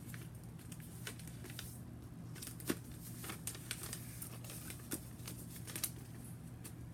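A square sheet of paper being folded and creased by hand: irregular crinkles and taps, the sharpest about a third of the way in and near the end, over a steady low hum.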